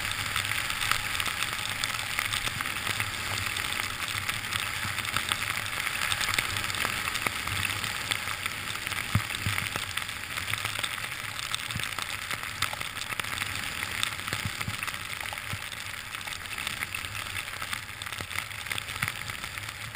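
Steady hiss and fine crackle of sliding fast through fresh powder snow, with wind rushing over a helmet-mounted camera.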